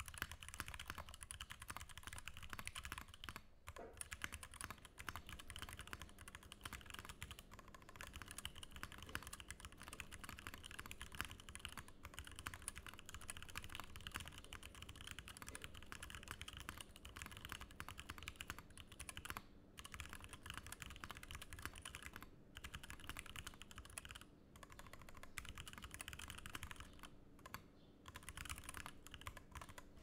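Continuous typing on an O-ring-mounted KBDfans Tofu mechanical keyboard with a carbon fiber plate, stock unlubed Gateron Ink switches and EnjoyPBT keycaps, its case dampened inside with Sorbothane. The keystrokes run together in a steady stream, broken by a few short pauses.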